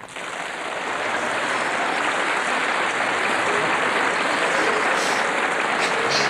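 Audience applauding, the clapping swelling up over the first second and then holding steady.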